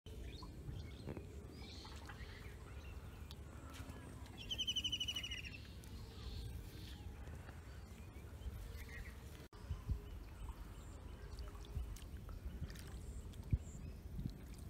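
Outdoor background noise with a low steady rumble, and a bird's short, rapid trill of high notes about four seconds in, with a few faint chirps around it.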